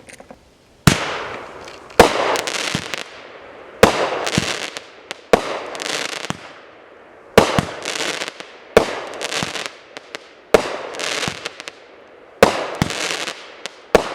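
Gunner Mates firework firing shot after shot, about eight in all, one every second and a half to two seconds. Each shot is a sharp bang followed by fading crackle.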